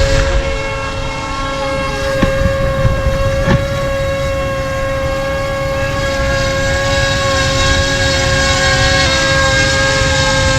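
DJI Mini 2 mini-drone's four propellers whining at a steady high pitch close by, over a low rumble of rushing air.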